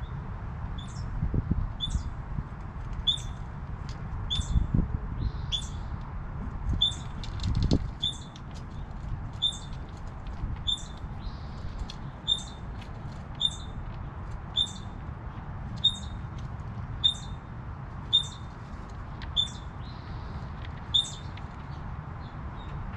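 A short, high animal chirp call repeated steadily, about one every 0.6 seconds, over a low background rumble. A few dull thumps come in the first eight seconds.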